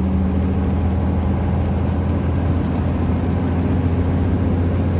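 Motorhome's engine and tyre noise heard from inside the cab while driving on a paved road: a steady low drone with no change in pitch.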